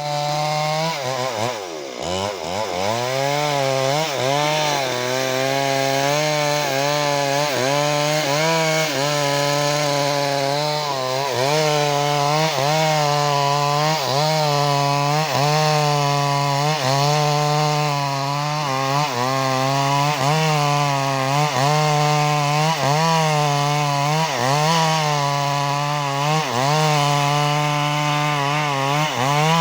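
Two-stroke chainsaw cutting wood, running hard throughout. The engine note dips and recovers about once a second as the chain bites, with a deeper drop about two seconds in.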